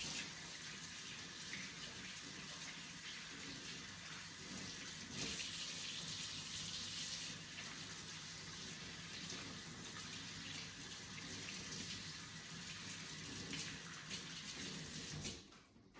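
Kitchen tap running steadily into a sink while hands are washed, with the flow shutting off about a second before the end.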